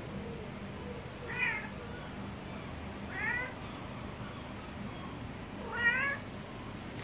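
Snow Bengal cat meowing three times, about two seconds apart; the last meow is the loudest and longest.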